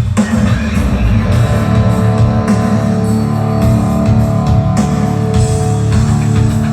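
Rock music with guitar and drums played loud through a line array PA system for a sound check, with a heavy low end.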